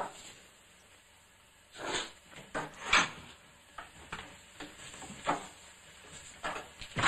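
A door being opened: the handle and latch click about three seconds in, followed by softer clicks and shuffling as someone steps through the doorway.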